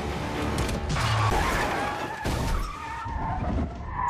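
Car tyres squealing as a vehicle skids, with a film score playing underneath.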